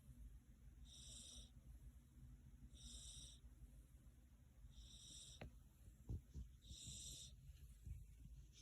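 A sleeping cat snoring faintly: a soft, high, hissy breath about every two seconds. A small click and a few soft bumps come a little past the middle.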